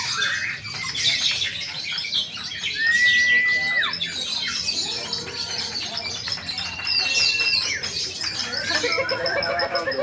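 Lovebirds chattering and squawking in rapid high trills. Two long steady whistle notes, each ending in a sharp downward drop, come about three and seven seconds in.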